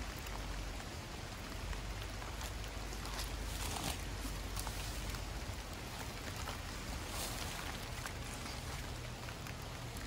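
Steady light rain pattering on foliage, with scattered individual drips.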